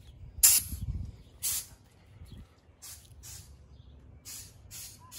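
A series of short hissing puffs of air, which fits air being blown into a newly fitted boat speedometer pitot to test whether the speedometer needle responds.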